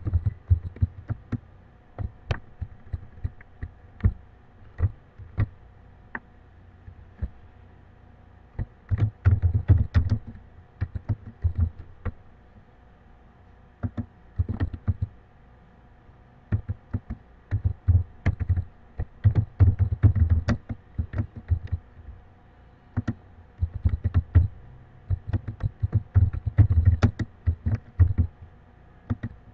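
Typing on a computer keyboard: irregular keystroke clicks, each with a dull thud, coming in bursts with short pauses between words and phrases.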